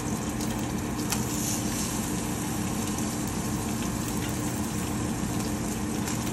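Slices of Spam sizzling in a frying pan, with a few scattered spits, over a steady low hum.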